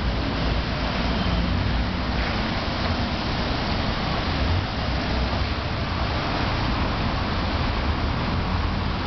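Steady rumble and hiss of street traffic, with a bus running close by.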